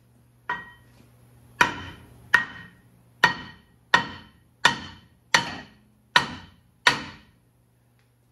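Hammer blows on a rusted-on Ford F-150 rear brake rotor, knocking it loose from the hub. Nine sharp metallic strikes, roughly one every three-quarters of a second, the first lighter, each ringing briefly.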